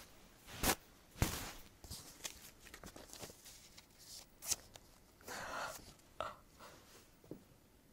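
Scattered clicks, knocks and rustles of clothing and paper being handled close to the microphone, the loudest two knocks in the first second and a half, with a short breathy laugh about five seconds in.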